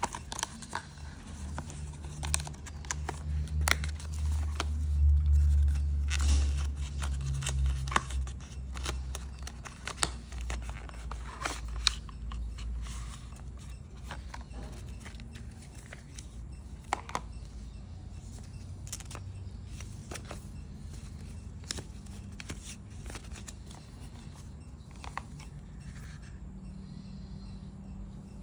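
Hands opening a cardboard box and sliding out a plastic phone case and paper inserts: scattered clicks, scrapes and paper rustling. A low rumble underneath is loudest in the first half and fades out about halfway through.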